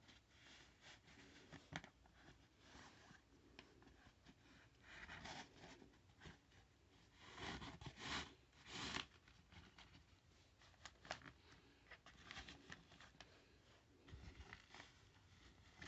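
Faint rustling and scraping of a black fabric bedside holster being tucked between a mattress and the bed base by hand, in irregular strokes, loudest about 7 to 9 seconds in.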